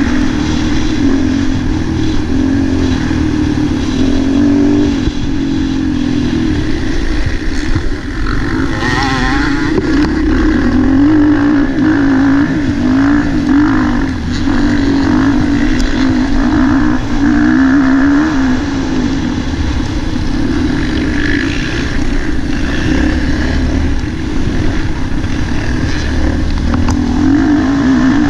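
MX1-class motocross bike engine heard from on board while racing, its pitch rising and falling over and over as the throttle is opened and closed.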